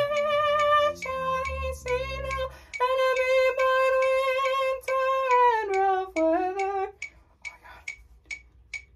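A woman's alto voice singing a slow line of long held notes, with low accompaniment notes underneath for the first two and a half seconds. The singing stops about seven seconds in, leaving a steady click a little over twice a second, at about 140 beats a minute.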